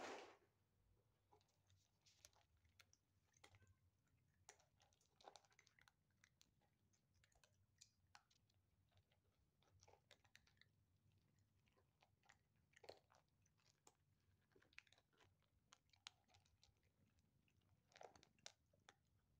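Black Bombay kittens crunching dry kibble from a plastic bowl: faint, irregular crunches and small clicks, with a brief louder noise right at the start.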